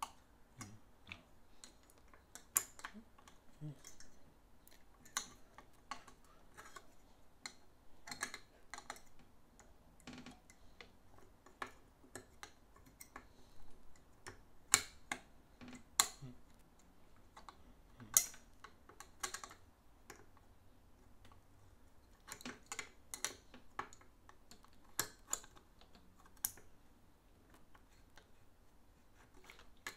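Irregular light metal clicks and taps, a few louder than the rest, as the Singer 15-91's bobbin slide plate and its clip are worked against the machine bed to fit them onto their greased tracks.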